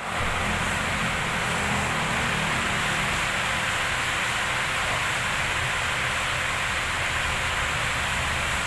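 Steady machine-shop noise: an even, unbroken hiss with a low motor hum from running machinery.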